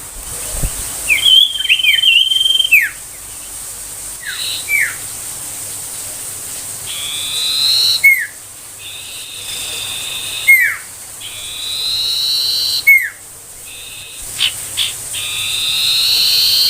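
Common iora singing: short whistled notes that slide down in pitch, alternating with longer, rising, buzzy whistles that swell in loudness over a second or two, repeated several times.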